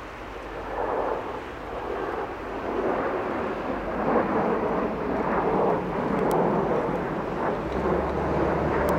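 Jet engine roar from a formation of JASDF Blue Impulse Kawasaki T-4 twin-turbofan trainers flying overhead. It swells within the first second and stays loud as a steady, rushing rumble.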